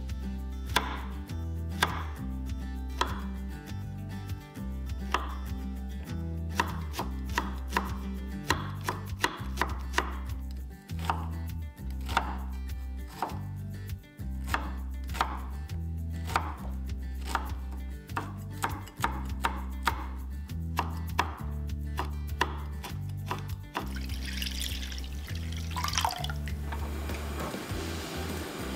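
Kitchen knife chopping tofu and then onion on a wooden cutting board: a long, irregular run of knocks, one or two a second. About four seconds from the end the chopping stops and a pot of stock bubbles at the boil.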